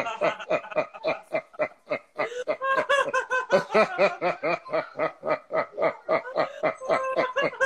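A man and a woman laughing heartily together in quick, rhythmic 'ha-ha-ha' pulses, about five a second. This is deliberate laughter-yoga laughing that has built up into a full, sustained laugh.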